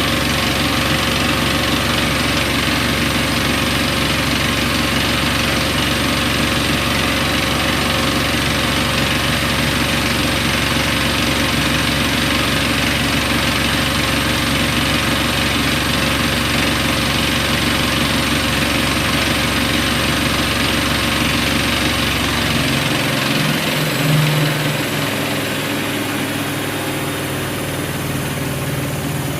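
Siemens iQ washing machine running with a steady loud whir. About three-quarters of the way through, the deep drone drops away and a higher hum takes over, a little quieter.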